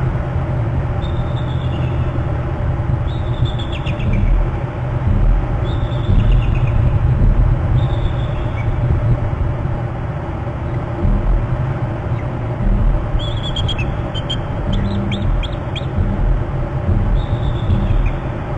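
Bird calls: short, slightly falling high notes about every two seconds, with a quicker cluster of notes about two-thirds of the way through. They sit over a steady low rumble.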